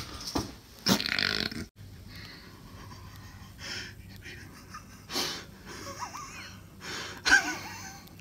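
A person's heavy breathing: breathy, wheezing exhales and gasps, the loudest about a second in, with a few short wavering voiced sounds near the end.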